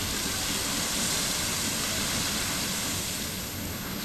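Rocket and Grotto Geysers erupting together: a steady rush of water and steam.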